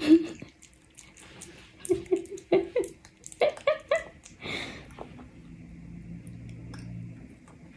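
A toddler giggling and squealing in short, quick laughing bursts about two to four seconds in, ending in a breathy laugh.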